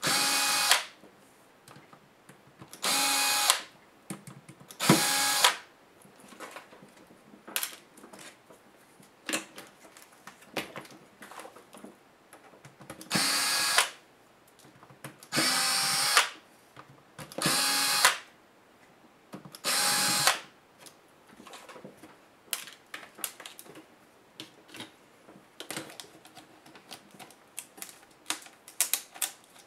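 Cordless drill-driver spinning out small screws from a laptop's LCD panel brackets in seven short bursts, each under a second, over the first twenty seconds. Light clicks and taps of screws and plastic parts being handled fill the gaps, then continue on their own toward the end.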